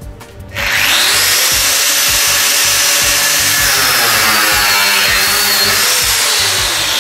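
Angle grinder starting about half a second in and then grinding into the rusty steel of a tram car's floor frame: a loud, steady grinding noise with a high whine that wavers in pitch as the disc bites.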